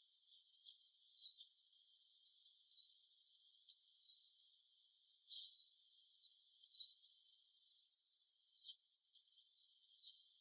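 Japanese white-eye giving a series of short, high calls, each sliding down in pitch, seven in all at roughly one-and-a-half-second intervals.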